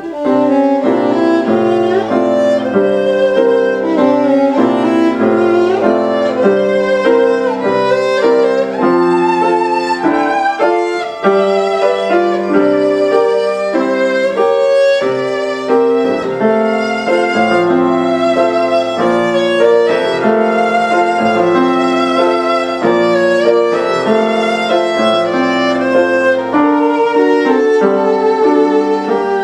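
Violin playing a classical melody with vibrato over piano accompaniment.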